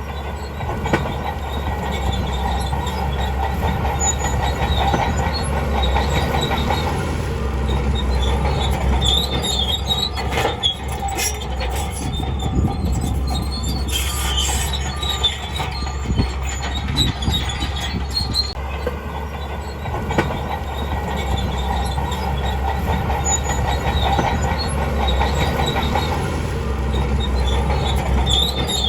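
Crawler bulldozer working: diesel engine running steadily under a low rumble, with the steel tracks squealing and clanking.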